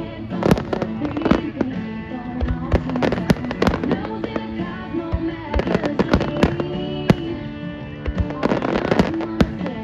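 Fireworks going off in a rapid, irregular run of sharp bangs and cracks, with music of long held notes playing underneath.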